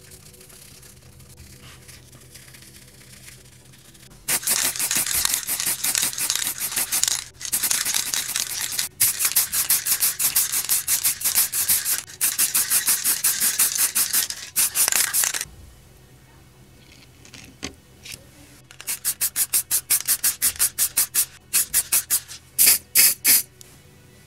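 Fast back-and-forth scrubbing strokes on a small part. The opening is faint, then a long loud run of quick strokes starts about four seconds in, and after a pause a shorter run of separate strokes comes near the end.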